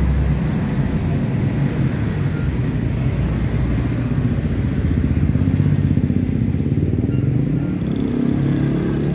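Road traffic with a motor engine running close by, most likely a motorcycle: a continuous low rumble whose pitch wavers and rises a little about eight seconds in.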